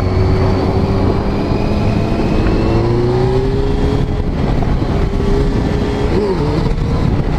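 Motorcycle engine running steadily while riding, with wind and road noise. The engine note climbs slowly through the middle and wavers briefly near the end.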